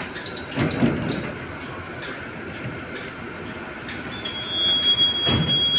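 A few knocks inside an empty tram, then about four seconds in a steady high-pitched whistle starts and holds: the tram's passenger SOS alarm sounding as it is tested.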